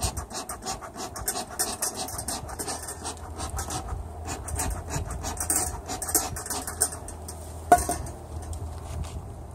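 Bee smoker worked over an open beehive: the bellows give a string of short hissing puffs, several a second. About three-quarters of the way through, a single sharp metallic click.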